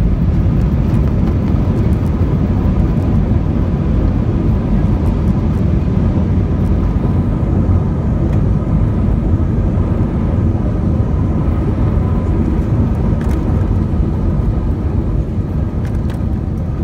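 Jet airliner cabin noise on the runway after landing: a loud, steady low rumble of engines and rolling wheels with a faint whine, easing slightly near the end as the plane slows.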